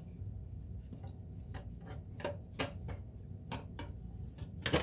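Scattered light plastic clicks and taps as the plastic side cover of a vintage Kenmore convertible sewing machine is handled and fitted over its pegs, with a sharper click near the end as it seats.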